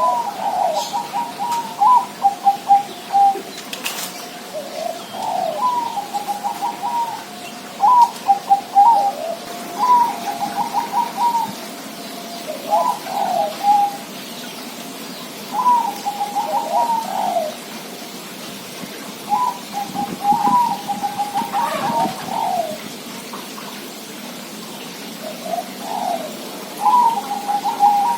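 Zebra dove (perkutut) cooing its staccato song: short phrases of quick rolling coos, repeated every few seconds with brief pauses between.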